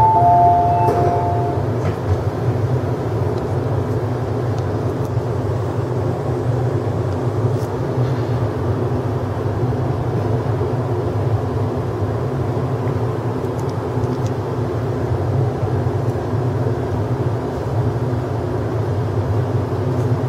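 Steady low hum of an MTR East Rail Line R-train electric multiple unit standing at a platform with its doors open, heard inside the carriage. A held two-tone electronic chime stops about a second and a half in.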